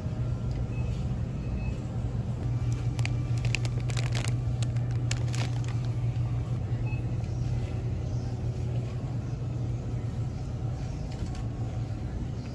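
Steady low hum of supermarket freezer-case refrigeration, with a few brief clicks or rattles about three to five and a half seconds in.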